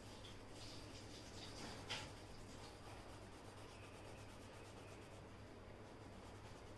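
Faint scratchy rubbing of a green colored pencil shading back and forth on drawing paper, with one light click about two seconds in.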